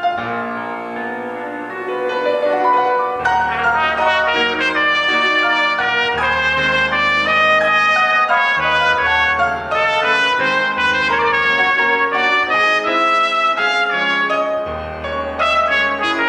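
Trumpet and grand piano playing classical music live. After a softer opening stretch, the trumpet plays a run of quick notes from about three seconds in, over low piano chords.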